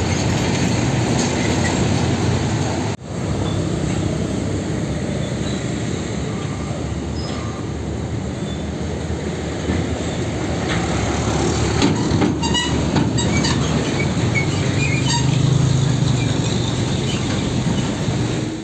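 Heavy diesel container trucks driving past close by: engines running under load and trailers rumbling over the road, with a few clanks and rattles partway through. The sound drops out briefly about three seconds in.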